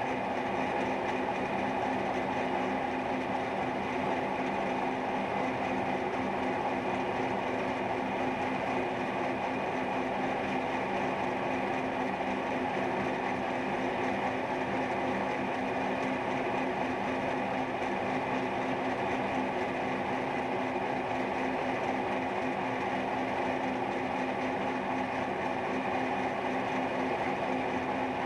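Milling machine running steadily with its end mill cutting a ball socket into a steel workpiece: a constant machine hum with a few steady tones under the noise of the cut.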